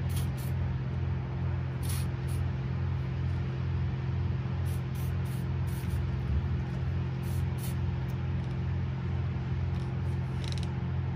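Background music with a steady beat, over short hissing bursts from an aerosol can of XPS anti-corrosive lubricant being sprayed, several times.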